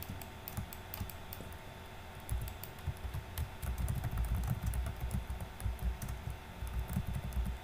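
Typing on a computer keyboard: a run of quick, irregular key clicks. From about two seconds in, dull low thuds run underneath.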